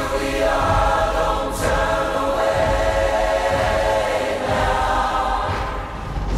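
Soundtrack music: a choir holding long sustained notes over a deep, pulsing low end, with a short whoosh about a second and a half in.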